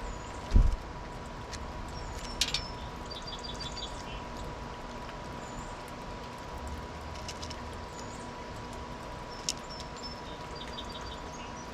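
Small songbirds chirping and calling at birdfeeders, with short high notes scattered throughout and two quick trilled series. A low thump about half a second in is the loudest sound, and a faint steady tone runs underneath.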